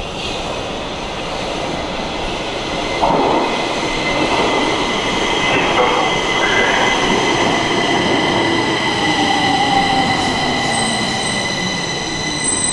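A Stockholm metro train arriving at a station platform. Its rumble rises sharply about three seconds in as it comes out of the tunnel, with a motor whine that falls in pitch as the train slows. Several high steady squealing tones from the wheels and brakes build and are loudest near the end as it pulls alongside.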